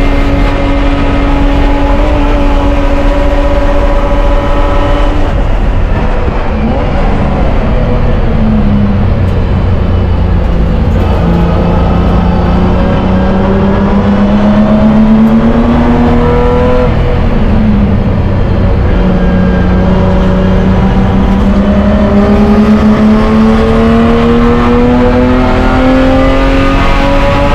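BMW E30 race car's engine heard from inside the stripped cabin, over heavy road and drivetrain rumble. It holds a steady note for about five seconds, drops as the driver lifts and slows for a corner, then pulls back up in pitch under full throttle, with a quick dip near the middle for an upshift before climbing again.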